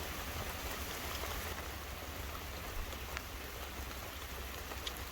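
Light rain falling on the car, heard from inside it as a steady patter with a few sharper drop ticks.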